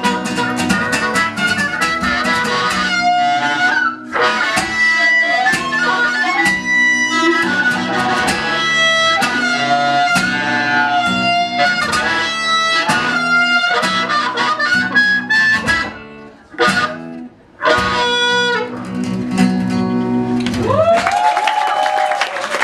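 A live band playing the song's closing instrumental passage, with no singing. The playing breaks off briefly about three-quarters through, then resumes and winds down near the end.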